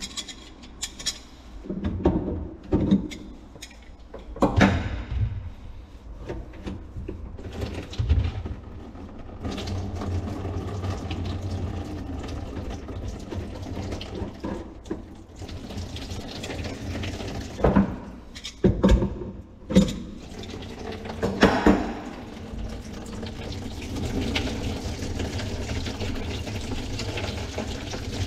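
Knocks and clunks at a backed-up kitchen sink, then from about ten seconds in a steady rush of water, broken by a few sharp knocks a little past the middle.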